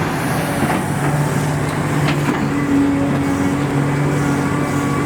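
Excavator's diesel engine running steadily under load, its hum shifting slightly in pitch, with a couple of light knocks.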